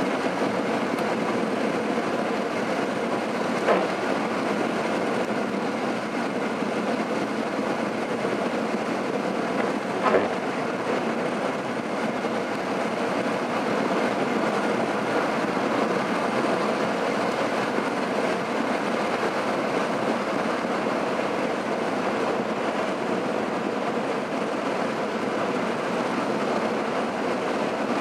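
Vehicle driving on a wet highway, heard from inside: steady road and tyre noise. Two brief knocks stand out, about 4 and 10 seconds in.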